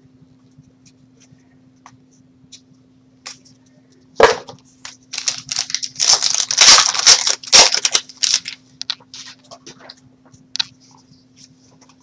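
Trading card pack wrapper being torn open and crinkled: a sharp rip about four seconds in, then several seconds of tearing and crinkling. A faint low steady hum sits underneath.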